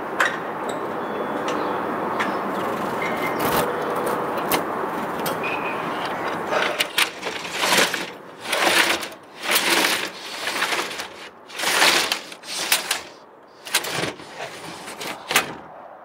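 Roller shutter being lowered, its slats rattling down the guide rails in a series of short, uneven bursts about a second each, after several seconds of steady background noise.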